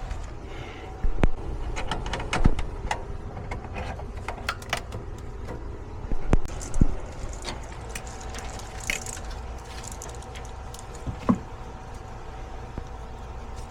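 Hand work on a furnace: scattered clicks, taps and knocks of metal parts and tools being handled while a control board is fitted in place, over a low steady background hum.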